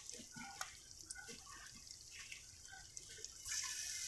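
Egg-coated bread frying in shallow oil in a frying pan, with faint scattered crackles and pops. About three and a half seconds in the sizzle turns suddenly louder and steadier as a second egg-dipped slice goes into the hot oil.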